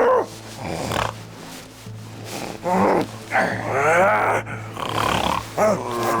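Loud, exaggerated human snoring, several growling snores a second or two apart, over background music.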